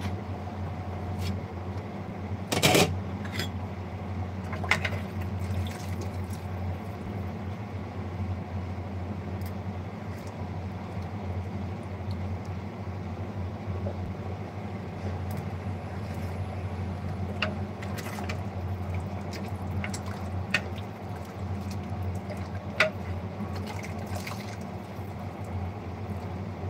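Steady low hum with a few scattered clicks and knocks, the loudest about three seconds in.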